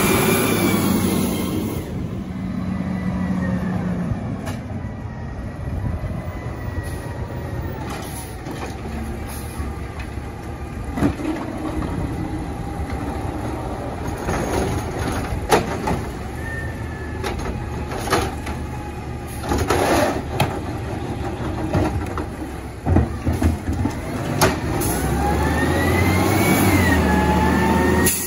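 Pendpac automated side-loader garbage truck working a trash cart: the engine runs and revs while the hydraulic arm lifts and tips the cart into the hopper, with several sharp knocks and bangs from the cart and arm in the middle. The engine pitch rises again near the end as the truck pulls away.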